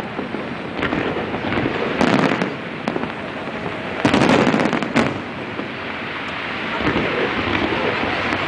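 Fireworks display: a dense, continuous crackle of bursting shells, with louder bursts about two seconds in and again from about four to five seconds in.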